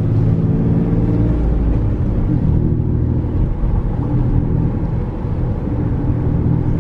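Toyota Tacoma X-Runner's V6 running through a Flowmaster Super 10 aftermarket exhaust, heard from inside the cab while driving: a steady, low exhaust drone.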